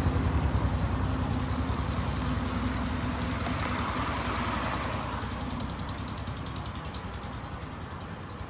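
Concrete mixer truck's diesel engine running with a deep, rapidly pulsing rumble, gradually growing quieter.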